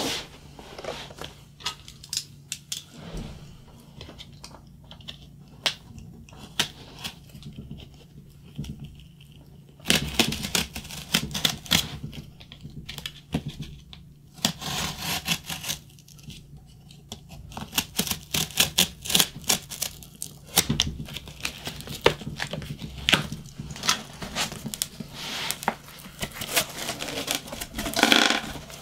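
A cardboard shipping box being opened: packing tape torn off and cardboard flaps handled and pulled open. It comes in bursts of scratchy rustling with many sharp clicks and scrapes, over a faint steady hum.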